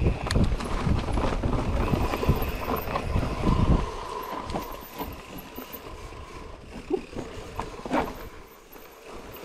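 Mountain bike riding down a dirt forest trail: tyres rolling over dirt and roots and the bike rattling, with a heavy rumble of wind on the microphone for the first four seconds or so. It then goes quieter, with scattered knocks as the bike goes over bumps.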